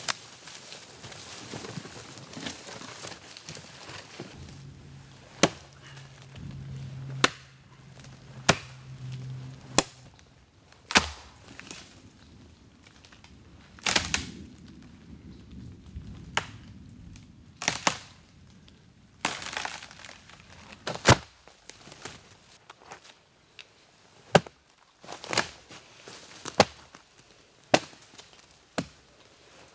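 Dry dead wood cracking and snapping as branches and a dead standing tree are broken up by hand, with more than a dozen sharp cracks spread through, and rustling and crunching steps in forest leaf litter in between.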